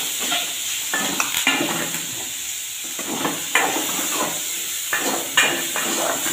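Metal spoon scraping and knocking against a metal pot while stirring chopped onions with dried fish that sizzle steadily as they sauté. The spoon strikes come unevenly, a few a second.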